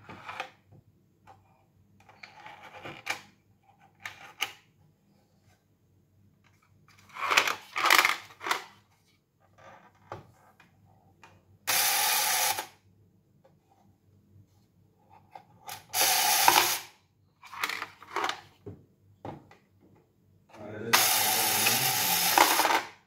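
Small geared motor inside a plastic puppy-house toy whirring in three short runs, the last about two seconds long, as the toy puppy comes out of the door. Scattered clicks and knocks of plastic parts being handled fall between the runs.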